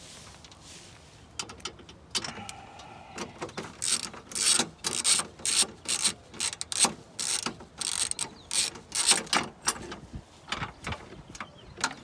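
Hand socket ratchet working bolts loose in a car's engine bay: a run of quick clicking bursts at about two a second, each back-swing of the handle clicking over the pawl.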